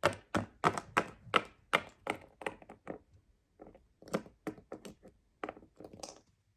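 A run of light taps or knocks on a hard surface, about three a second, with a short pause about halfway through.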